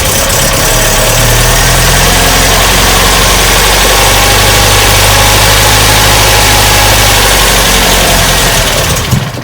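MGB's 1.8-litre B-series four-cylinder engine running fast and steady on full choke, just after firing up from two months standing. It cuts out suddenly near the end.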